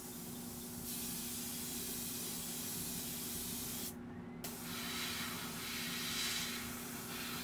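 Airbrush spraying chrome paint, a hiss that starts about a second in, cuts off briefly near the middle, then comes back swelling and fading, over a steady low hum.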